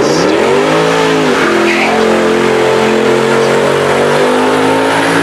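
Mercedes-AMG car's engine revving hard for a burnout: the revs climb in the first second, dip briefly, then hold steady as the rear tyres spin and hiss in smoke.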